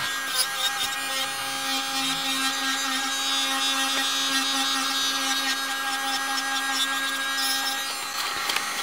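Electric nail drill with a corn-shaped bit running at a steady pitch, filing the old gel coating off a fingernail. The hum stops shortly before the end.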